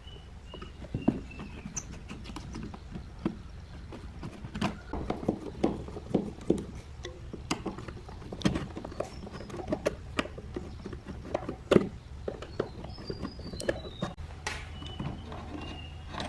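A hand screwdriver working the small screws out of a rusty metal hinge on a wooden clock case: irregular clicks, scrapes and knocks of metal on metal and wood. Birds chirp faintly in the background.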